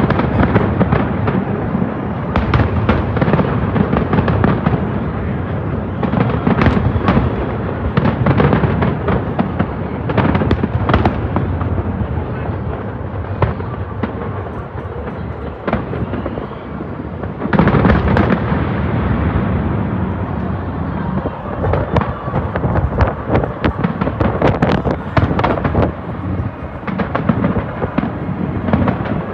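Large aerial fireworks display: a dense, continuous barrage of shell bursts, with many sharp cracks over a low rumbling boom. It eases a little in the middle and surges again a little over halfway through.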